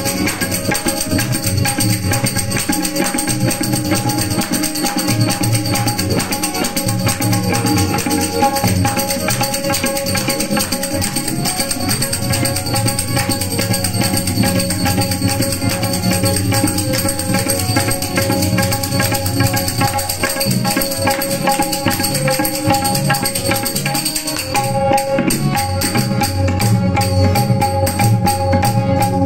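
Devotional bhajan music: a harmonium holding steady notes over a tabla rhythm, with small hand cymbals jingling in time.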